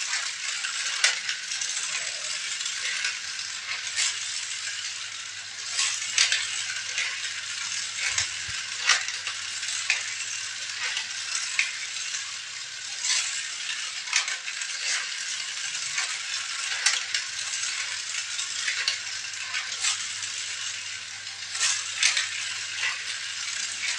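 Continuous rattling with frequent sharp, irregular clicks, like small hard objects being handled and knocked together, over a steady hiss.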